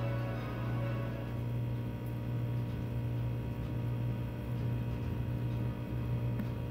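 Steady low hum, with the tail of background music fading out about a second in.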